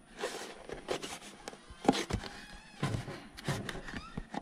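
Hands prying at the foam hatch on a Volantex Ranger 2000 glider's fuselage: irregular clicks and knocks of the parts being worked, with a few short squeaks of foam rubbing on foam.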